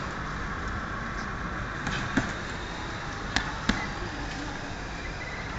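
Gloved strikes landing on a hanging heavy punching bag: three short thuds, one about two seconds in and then two close together about a second later, over steady background noise.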